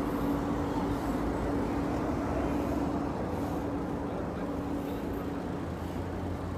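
Steady engine and road noise of a car driving through city streets, with a steady hum that weakens about halfway through.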